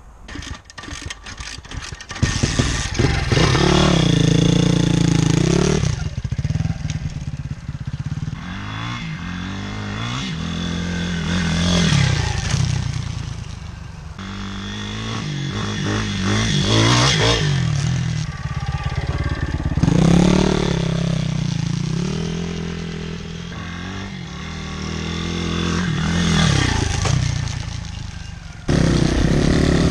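Single-cylinder four-stroke pit bike engine being ridden, revving up and dropping back several times as the rider works the throttle through the grass.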